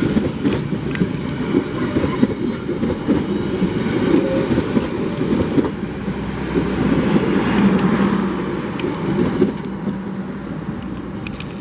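Train running through a station, its wheels clattering over the rails with a dense, rough rumble. A steady low hum joins in about two-thirds of the way through, and the sound eases a little near the end.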